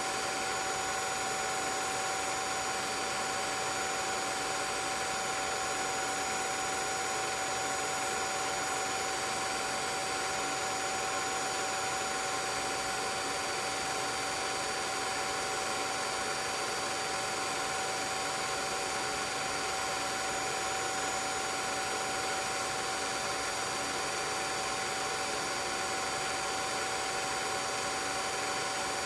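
16mm film projector running: a steady mechanical whir with a few fixed whining tones.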